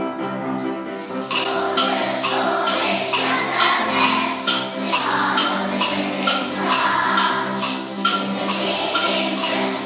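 Music: the backing track of a school song, a held keyboard intro joined about a second in by a brisk, steady percussion beat.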